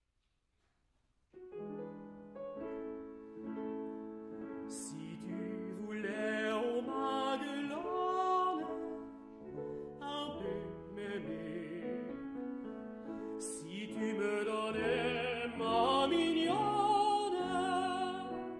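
Classical tenor singing a French art song with piano accompaniment. The piano comes in about a second in, and the voice, with a wide vibrato, joins a few seconds later.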